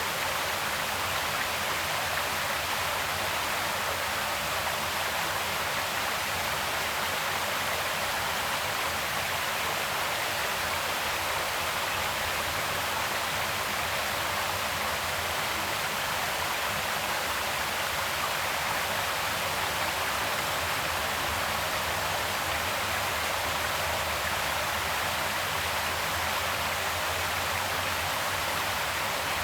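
Creek water flowing steadily, an even rushing with no breaks or changes.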